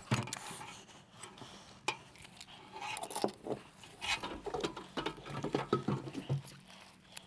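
Light, irregular clicks, taps and rattles of hand tools and an aluminium ladder being handled by a worker setting up a chalk line.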